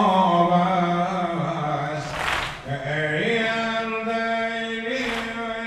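A man chanting a Muharram mourning dirge (noha) in long held notes that slide from pitch to pitch. Twice, about three seconds apart, a crowd of mourners strikes their chests in unison.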